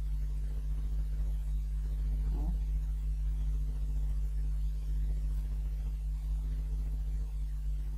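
Steady electrical mains hum with a buzz in the recording, unchanging throughout.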